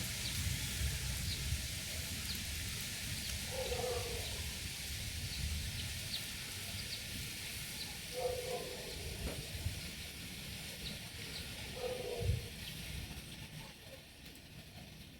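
Outdoor ambience: a steady hiss with a low rumble like wind on the microphone, and a short low animal call heard three times, about four seconds apart.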